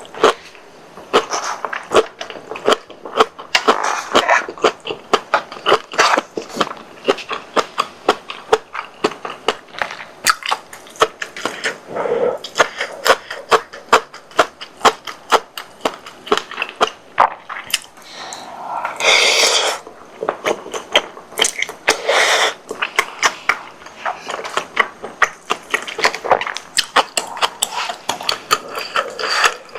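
Close-miked chewing of spicy tteokbokki with sausage and cabbage: dense, irregular wet mouth clicks and bites, broken by a few longer breathy bursts, the clearest about two-thirds of the way in.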